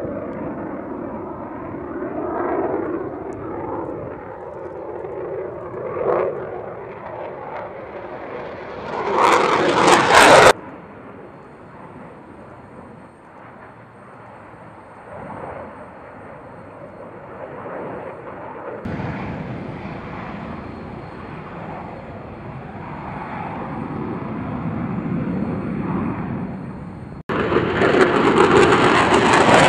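Jet noise from an F-22 Raptor's two F119 afterburning turbofans as the fighter flies overhead. It swells to a loud pass about ten seconds in and cuts off abruptly. It comes back loudest near the end as the jet passes close.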